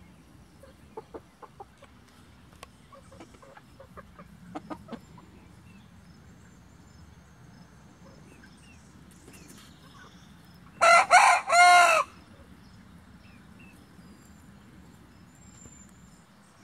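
A rooster crowing once, a short cock-a-doodle-doo in about three linked parts, about eleven seconds in. A few soft chicken clucks come earlier, in the first five seconds.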